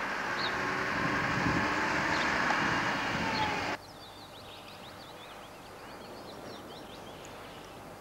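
Vehicle engine and road noise, heard from a moving vehicle, cut off abruptly about four seconds in. Then small birds chirping many times over a quiet background.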